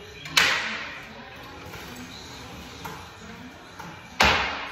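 Two sharp knocks about four seconds apart, each sudden and loud with a short ringing tail that dies away within about half a second.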